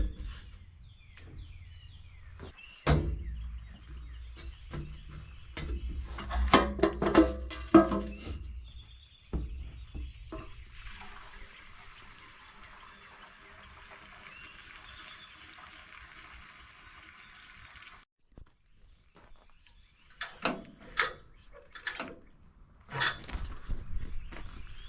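Knocks and clatter of a water jug and the sawmill's blade-lubricant water tank being handled. About ten seconds in, water runs steadily for roughly seven seconds, then cuts off sharply.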